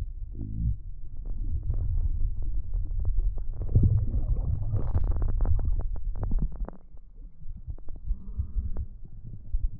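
Action camera underwater: a muffled low rumble with many small pops and clicks of exhaled air bubbles. About seven seconds in the camera breaks the surface and the rumble gives way to lighter sound of water moving at the surface.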